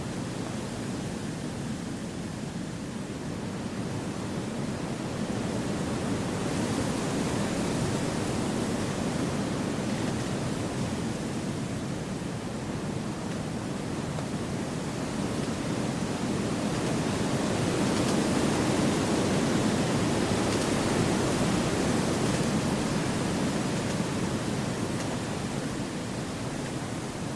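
Wind blowing through a forest: a steady rushing noise that swells gently in two slow gusts, one about a quarter of the way in and a stronger one past the middle.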